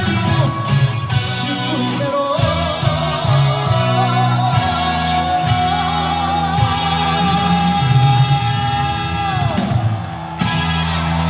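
Live trot song with a male singer and band accompaniment, including electric guitar. A long note is held for about five seconds and falls off about nine seconds in.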